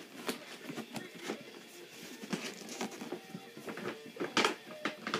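Irregular clicks and taps from plastic toy figures and packaging being handled, the loudest about four seconds in.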